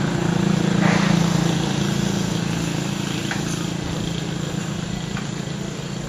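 An engine running steadily with a low hum, loudest about a second in and then slowly fading.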